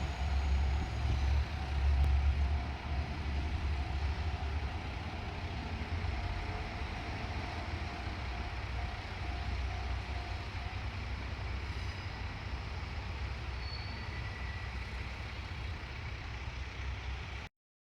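JR Shikoku diesel railcar's engine rumbling low as the train runs, slowly easing off in level, then cutting off abruptly near the end.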